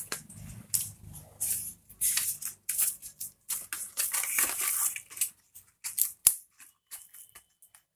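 Paper leaflets and cardboard packaging rustling and crinkling in quick, irregular bursts as they are handled, with one sharp tap about six seconds in.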